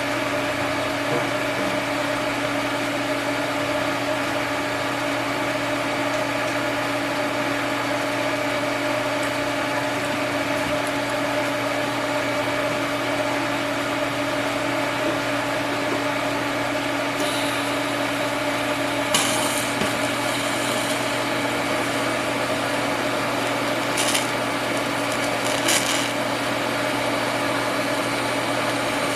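Steady machine hum holding several constant tones, with a few short bursts of scraping or crackling noise about two-thirds of the way through.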